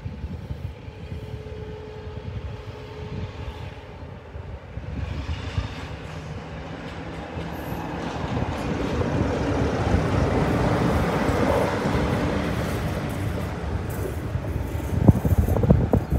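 Class 47 diesel-electric locomotive with its Sulzer twin-bank engine running as it approaches and passes hauling a rake of coaches, the engine growing louder to a peak about two-thirds through. Near the end the coach wheels clatter over the rail joints in a run of sharp knocks.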